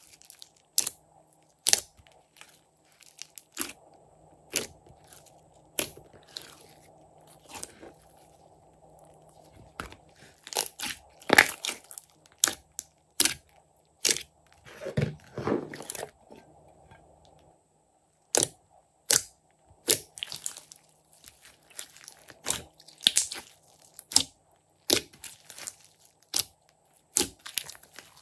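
Hands squeezing and kneading a large mass of glossy slime, giving irregular sharp pops and crackles about once or twice a second, with a denser run of them midway.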